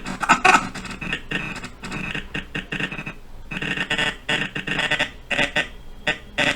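Choppy, stuttering fragments of a recorded voice line, cut into short repeated snippets, as when the dialogue audio track in Blender is scrubbed along the timeline.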